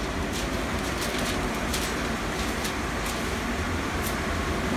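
Steady workshop machine hum with a low rumble, broken by scattered light ticks and rustles.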